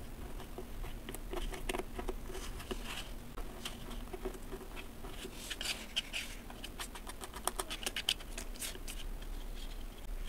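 Pink kinetic sand being scraped and crumbled with a thin plastic stick around a plastic mould, giving soft scratching and crackling. About halfway through, this turns into a quick run of sharper crunchy clicks.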